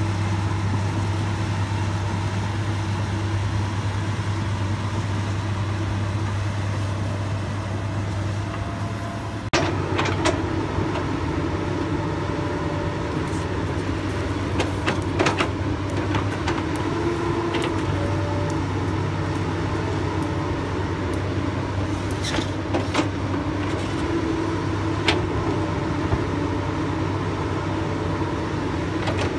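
Komatsu PC200 hydraulic excavator's diesel engine running steadily under digging load. From about ten seconds in, irregular sharp clanks and knocks come from the bucket working in the soil.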